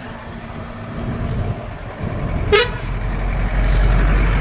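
A single short vehicle horn toot about two and a half seconds in, over a steady low rumble of wind on the microphone that grows louder from that point as the bicycle rides along the road.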